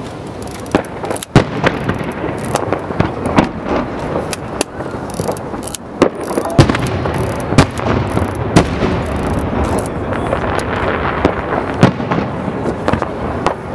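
Aerial firework shells bursting one after another: a steady run of sharp bangs and crackles, with the loudest bangs about a second in, halfway through and near the end.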